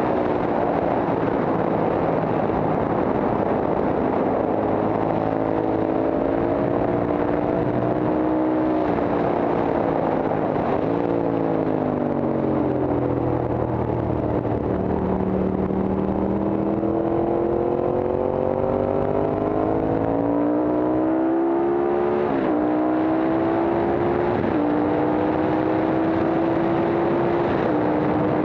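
Horvath Guzzi racing motorcycle's Moto Guzzi V-twin engine at full throttle on track. Its pitch climbs through each gear and drops suddenly at the upshifts, falling away once near the middle as the bike slows for a bend. Wind rush is heard from on board.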